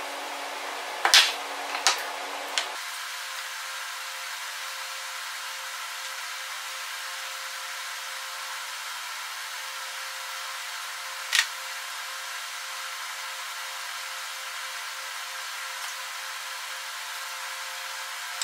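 Sharp clicks and knocks of a plastic one-handed bar clamp being handled and set down on a plywood workbench, three close together in the first few seconds and one more about eleven seconds in, over a steady hum and hiss.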